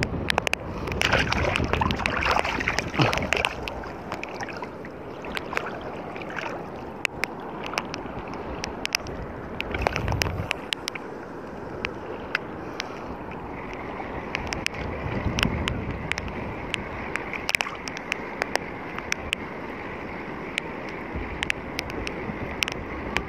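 Sea water washing and sloshing steadily, with scattered sharp clicks from handling a spinning reel and rod.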